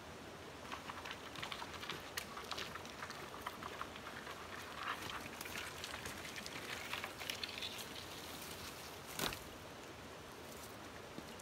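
Dry dead branches being hauled over gravel and brush, with dense irregular crackling, snapping and scraping. About nine seconds in comes a single sharp knock as the poles are dropped on the ground.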